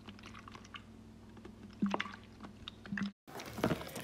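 Soft wet squishing and clicking of a silicone spatula stirring soapy slime in a glass bowl, as baking soda and salt are mixed in to activate and thicken it. A faint steady hum runs underneath, and the squelching gets louder after a brief break about three seconds in.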